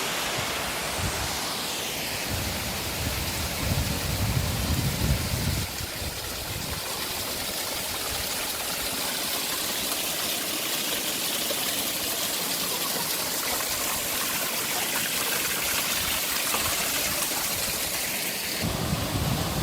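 Waterfall water rushing and splashing in a steady hiss, with a low rumble in the first few seconds and again near the end.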